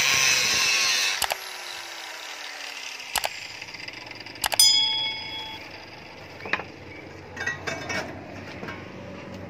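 Angle grinder cutting a steel bar with a harsh grinding hiss, switched off about a second in and spinning down with a falling whine. Then a few metal clicks, and one loud ringing clank with a few lighter clanks after it as the cut steel pieces are handled on a wooden bench.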